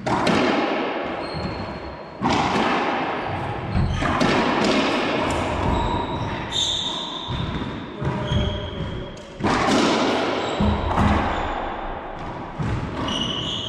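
Racquetball doubles rally: the ball smacking off racquets and the court walls about every one to two seconds, each hit echoing around the enclosed court. Sneakers squeak briefly on the hardwood floor between hits.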